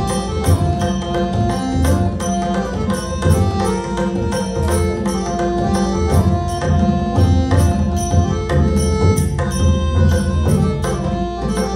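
Harmonium playing a melody in held notes, with tabla strokes keeping the rhythm and the bright clash of manjira, small hand cymbals.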